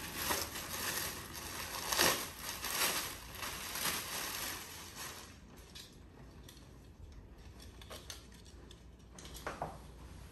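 Thin plastic mailer bag crinkling and rustling as a dress is pulled out of it, busy and crackly for about the first five seconds, then settling to a few soft rustles and clicks.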